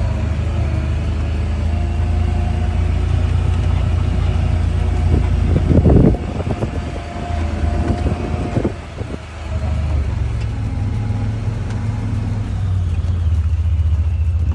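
A vehicle engine running steadily as it drives, a low rumble, with a brief knock about six seconds in.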